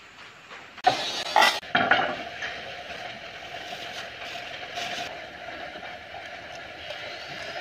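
A clear plastic bag of loose steel nails being handled: rustling and the nails clinking, loudest in a cluster about a second in, with lighter clinks and rustles a few seconds later. A faint steady tone runs underneath.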